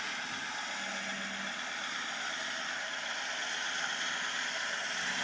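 Steady hiss with a faint low hum from the modified VW Touareg's V10 diesel crawling slowly over rocks; the hum comes up briefly about a second in and again near the end.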